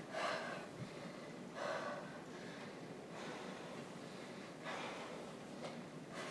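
A woman breathing hard and audibly, about one heavy breath every second and a half: she is winded from exercise during push-ups.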